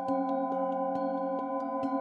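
Several metal singing bowls struck in quick succession with a wooden mallet, about three strikes a second. Each strike layers a new note over steady, overlapping ringing tones.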